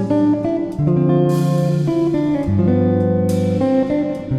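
Background music led by guitar over bass notes, the chords changing every second or two, with a cymbal-like crash about a second in and again a little after three seconds.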